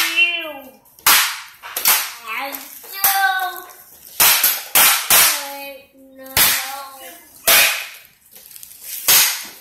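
A child's noisy make-believe play: about ten sharp cracks, a second or so apart, with a child's wordless, pitched sound-effect noises between them.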